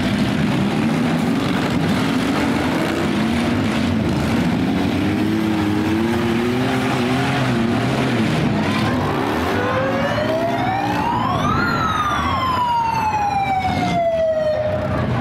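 Demolition derby cars' engines revving hard and unevenly, their pitch wavering up and down. Near the end a siren winds up over about two seconds and then slowly dies away, sounded to stop the heat after a car has rolled onto its side.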